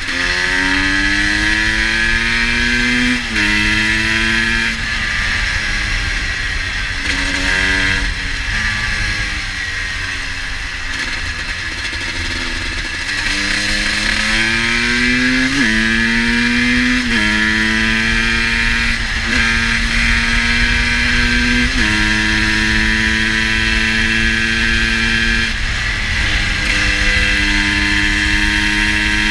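GasGas EC 250 single-cylinder two-stroke motorcycle engine pulling through the gears: its pitch climbs and drops sharply at each upshift, several times, then holds steady. The engine is running a little rich.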